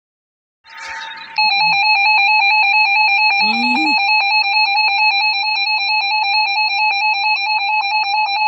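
Emergency Alert System two-tone attention signal: a loud, steady, harsh alarm tone that starts abruptly about a second and a half in, after a short burst of buzzy noise.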